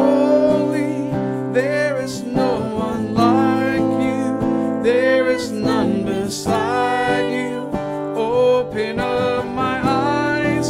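Live worship song: an acoustic guitar strummed, with voices singing over it.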